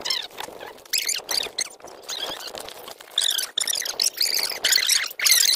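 Rapid, high-pitched squeaking calls from small animals, many overlapping, growing denser and louder about halfway through.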